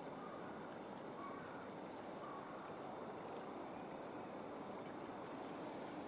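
Short, very high bird chirps, the sharpest about four seconds in and a few more after it, over a steady background hiss of the river.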